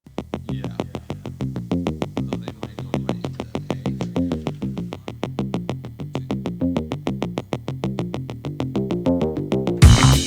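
Electronic intro music: a quick synthesizer pattern of short repeated notes over a moving bass line, with drums and a fuller sound coming in near the end.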